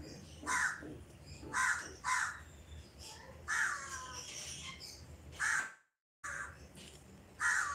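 Crows cawing, about seven short calls at uneven spacing. The sound drops out completely for about half a second near the end.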